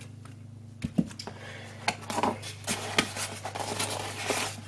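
Hands handling a polystyrene foam packaging insert in a cardboard box: a run of clicks, scratchy rubbing and rustling that starts about a second in, over a faint steady low hum.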